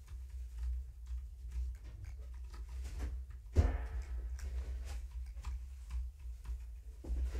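Room tone with a steady low hum and scattered faint ticks and taps. About three and a half seconds in there is one sharp knock with a brief pitched ring after it.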